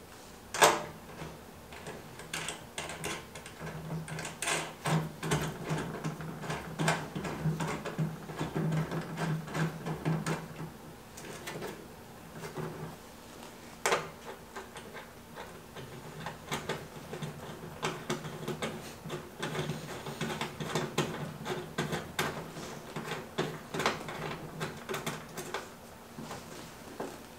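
Small metal clicks, taps and scrapes as hanging hooks and their nuts are threaded by hand into the top of an air filtration unit's cabinet, irregular throughout, with a steady low hum underneath.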